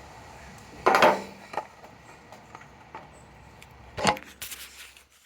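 Two knocks about three seconds apart, the first the louder, with a few light clicks near the end: small hard objects being handled and set down.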